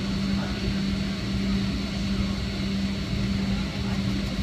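Cabin noise inside a Boeing 757-300 rolling on the runway after touchdown: engines running with a steady hum over a broad rumble of airflow and wheels.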